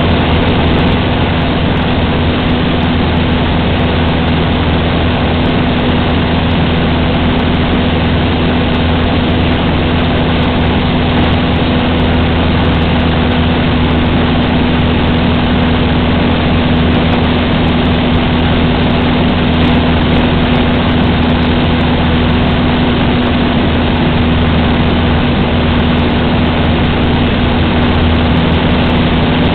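Cessna 150's Continental O-200 four-cylinder engine and propeller running steadily in flight, an even, unchanging hum.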